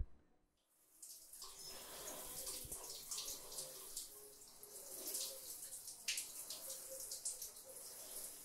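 A sharp click, then after a short gap a shower starts to be heard: water running and splashing onto a person's head and back, a steady hiss with small irregular splashes.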